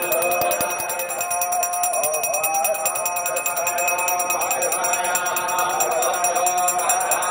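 A bell rung rapidly and continuously, with music carrying a wavering melody underneath.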